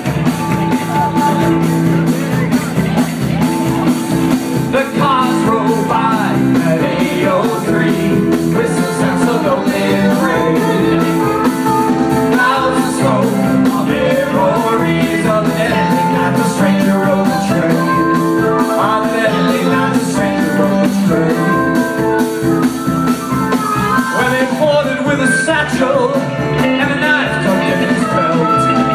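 A live band playing loudly, with drum kit, electric guitar and keyboard, and vocals sung into the microphones.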